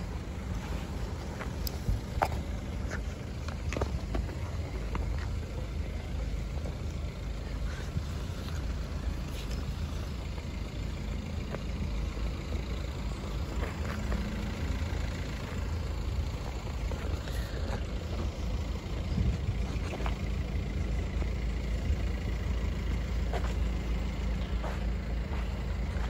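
Idling cars queued at a closed level crossing: a steady low rumble with a few faint clicks.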